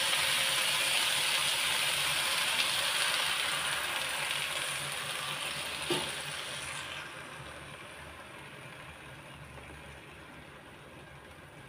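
Spinach and beaten egg frying in a hot nonstick pan, sizzling and slowly dying down as the egg is poured in and cools the pan. A single sharp click about six seconds in.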